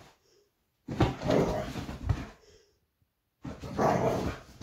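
A Staffordshire bull terrier puppy and a young American Staffordshire terrier vocalising in two drawn-out bursts. The first starts about a second in; the second starts shortly before the end.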